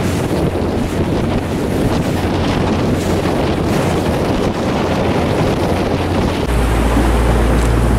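Strong wind buffeting the microphone over choppy water, a dense rushing noise with a heavy low rumble that swells about six and a half seconds in.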